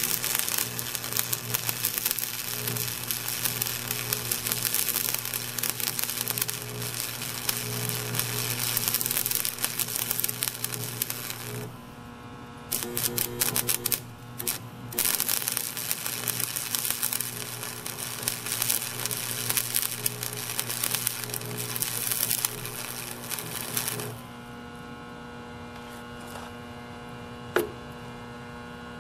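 Arc (stick) welding with a Campbell Hausfeld 70-amp arc welder, 5/64 rod at 20 amps on 3/16-inch steel: the arc crackles steadily for about twelve seconds, breaks off briefly and restrikes with a few sputters, then runs on until it stops about 24 seconds in. A steady electrical hum runs underneath and is left alone after the arc stops, with a single click near the end.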